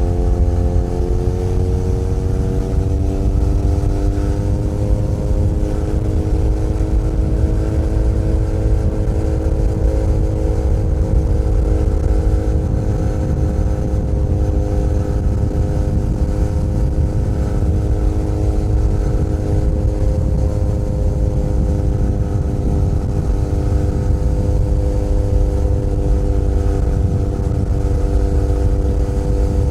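Benelli Leoncino 500 Trail's parallel-twin engine running at speed on the road, its pitch rising over the first few seconds, then holding steady. A heavy low rumble sits underneath.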